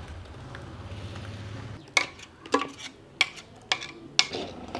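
A metal spoon scraping and knocking against a steel pot as thick beetroot paste is scraped out into an iron kadai: about five sharp clinks, roughly half a second apart, starting about two seconds in. A low steady hum runs underneath at first.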